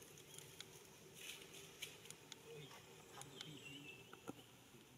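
Near silence: faint outdoor background with scattered soft clicks and ticks.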